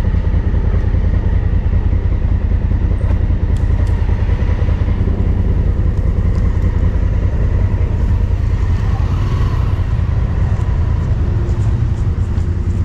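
Dual-sport motorcycle running steadily while riding, with a heavy low rumble.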